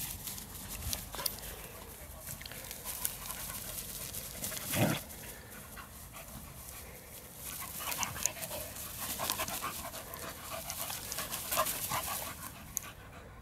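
Two dogs, a young puppy and an older dog, play-fighting: panting and scuffling through dry grass. A short yelp about five seconds in, and brief whines and scuffles from about eight seconds on.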